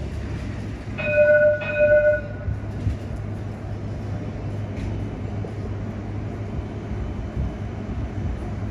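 A CAF Urbos light rail tram sounds its warning bell twice in quick succession about a second in, each strike ringing with several clear tones and fading within about a second. Under it runs the tram's steady low hum and rumble as it comes along the street track.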